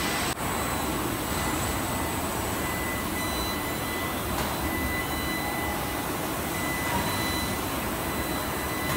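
Steady machinery noise from a robotic truck-cab body-shop line: an even rushing hum with faint, thin, high steady whines over it.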